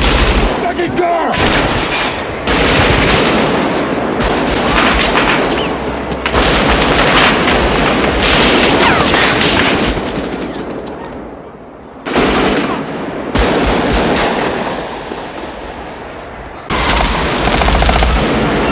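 Rapid automatic rifle fire in long bursts, with supersonic bullet cracks and pops mixed in. There is a brief lull about ten seconds in, then the bursts start again several times.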